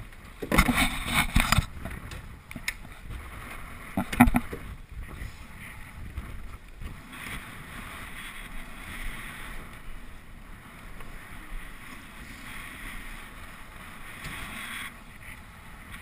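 Water rushing along the hull of a small sailboat heeled under sail. There are two loud bursts of noise, one of several close strokes starting about half a second in and lasting about a second, and a shorter one about four seconds in.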